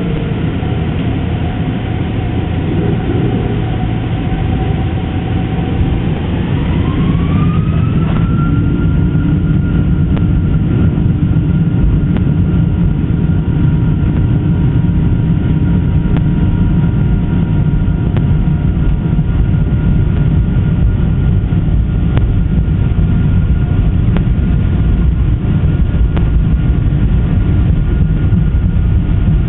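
Boeing 747-400's four turbofan engines spooling up to takeoff thrust, heard from inside the cabin: a whine rises in pitch about seven seconds in and then holds steady over a loud, even rumble.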